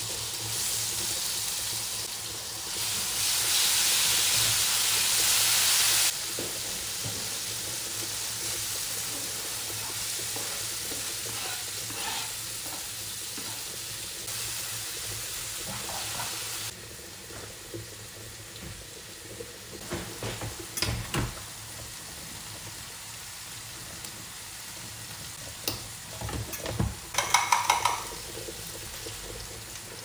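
Chopped peppers and onions hit hot oil in a frying pan and sizzle, loudest for the first few seconds. The food keeps sizzling more softly as it is stirred with a wooden spatula. Near the end come scrapes, knocks and a few quick clinks of utensils.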